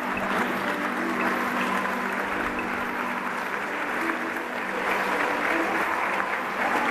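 Audience applauding steadily, with a low steady tone held underneath.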